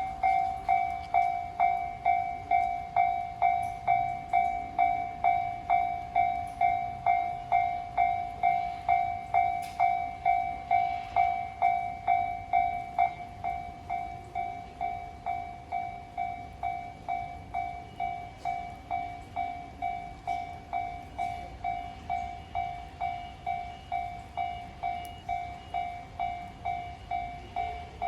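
Japanese railway level-crossing warning bell ringing, an even electronic ding repeated about twice a second, growing quieter about halfway through.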